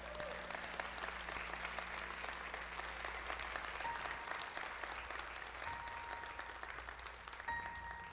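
Theatre audience applauding, a dense patter of many hands that thins out near the end. A few soft held notes come in faintly from about halfway through.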